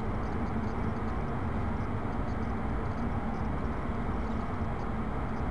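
Steady background noise with a faint, constant low hum and no other events: the room tone of the hall.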